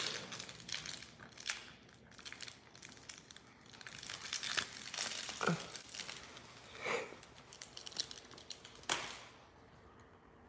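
Crinkling and rustling of a plush toy as a Labrador puppy tugs and chews on it, in short scattered bursts, with a brief falling squeak about halfway through.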